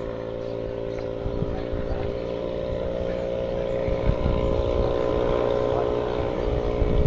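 Motorboat engine, the modified Yasuka 500, running at a steady pitch out on the river and getting gradually louder as the boat approaches. Wind buffets the microphone.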